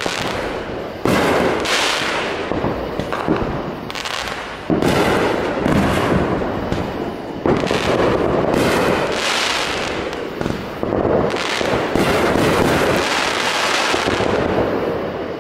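Aerial fireworks going off in quick succession: sharp bangs of bursting shells every few seconds, with dense crackling carrying on between them.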